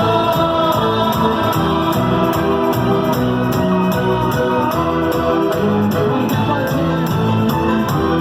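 A song playing from recorded music, with a steady beat and sustained instrumental notes.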